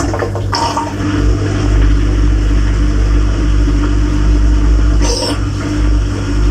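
Dishwasher wash pump starting abruptly and running with a steady low hum, water spraying and splashing around the inside of the tub, with brief heavier splashes about half a second in and again near the end.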